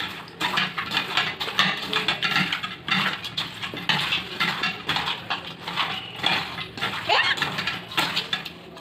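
Raw chicken pieces being mixed by hand with spice paste in a bowl for marinating: a steady, irregular run of wet squelches and small clicks. A short rising squeal comes through about seven seconds in.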